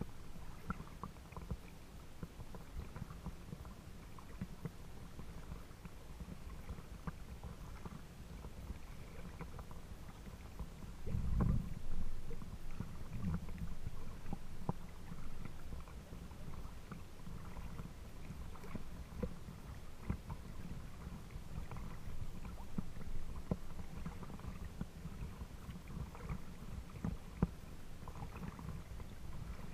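Small waves lapping and sloshing against a small boat at the waterline, with a steady low rumble and scattered small splashes. About eleven seconds in there is a louder low rumble lasting a second or two.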